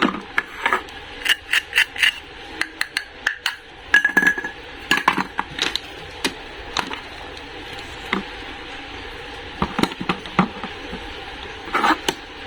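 Irregular small clicks, taps and clinks of hard objects being handled, over a steady background hiss.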